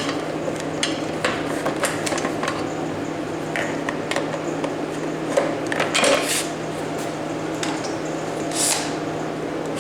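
Scattered clicks, taps and clinks of hand tools and metal parts being handled as the housing of a small portable air compressor is unscrewed, over a steady low hum.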